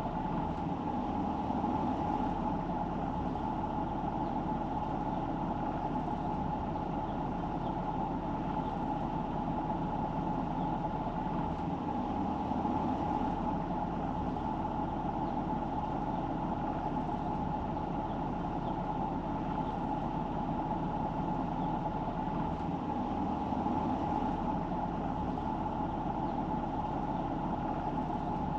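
A car driving, with steady engine and road noise and no sharp events.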